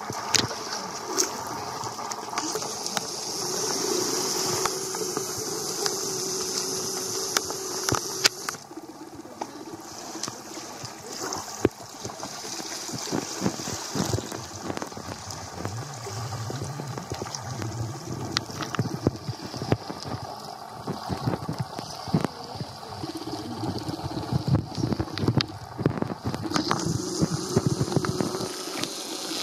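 Small waves lapping at a rocky shore, a steady watery wash with scattered knocks and clicks.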